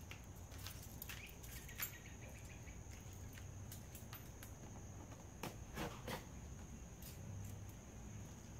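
Faint outdoor background with a steady high insect buzz, and a few light taps and rustles as a cardboard fuel pump box is picked up and handled.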